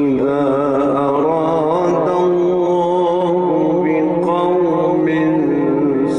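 Male Quran reciter chanting one long, melodic phrase, its pitch wavering and bending in ornamented runs.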